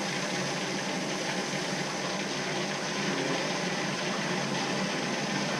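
Navien tankless water heater running with water and its pump rushing steadily, air still in the water, a sign the unit is getting airbound.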